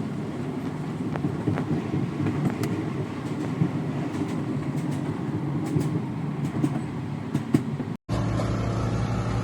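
Train running: a steady low rumble with scattered clicks and rattles. An abrupt cut about eight seconds in gives way to a steadier engine hum.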